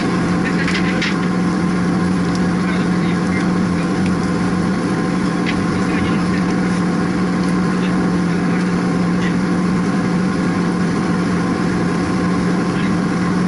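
Steady, loud drone of running plant-room machinery with a strong low hum, plus a few light metallic clicks about a second in and again near the middle.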